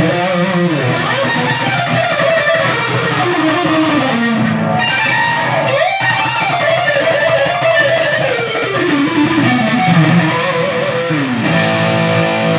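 Ibanez RG560 electric guitar played in fast runs of notes that sweep down and up in pitch, settling on a held note near the end.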